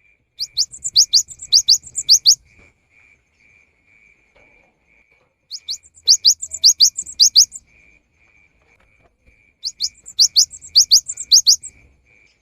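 Cinereous tit (gelatik batu) singing: three bursts of rapid, quickly rising high notes, each about two seconds long, with short pauses between them.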